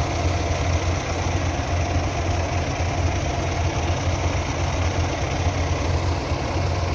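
Tractor diesel engine idling steadily, a low even hum with no revving.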